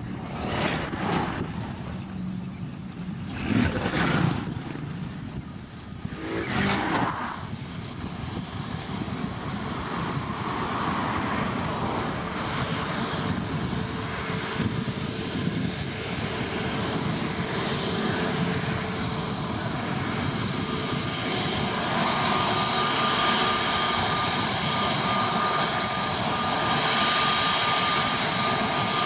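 Airbus A320neo airliner's jet engines running steadily as it taxis toward the microphone, the whine slowly growing louder, with a high steady tone joining about two-thirds of the way in. Wind buffets the microphone in the first several seconds.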